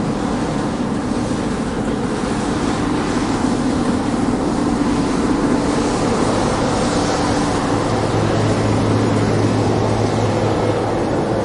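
Combine harvester running steadily at work, a constant engine hum under a broad mechanical rush; a deeper hum joins about two-thirds of the way through.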